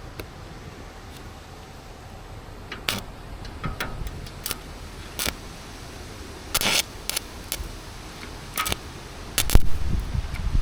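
Irregular sharp clicks and knocks, about a dozen, some a little longer than others, over a low steady background.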